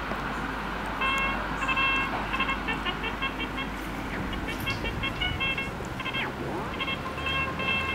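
Short horn toots repeating in a stuttering rhythm over a steady rushing background, with a couple of brief gliding tones.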